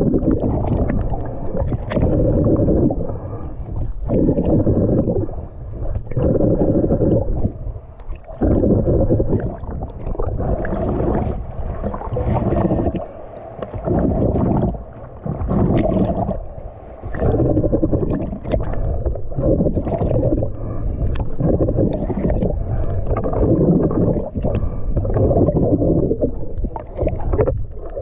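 Muffled underwater rumbling and sloshing of water around a GoPro in its waterproof housing during snorkelling. It swells and drops every second or two, with a few faint clicks.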